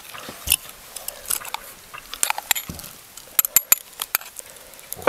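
People eating grilled lamb chops with their hands: biting and chewing, with scattered short sharp clicks and crackles and a quick run of clicks a little past the middle.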